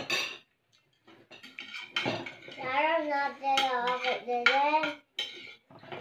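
Spoons and forks clinking and scraping on plates during a meal. From about two and a half seconds in to about five seconds, a person's voice is held out, its pitch wavering.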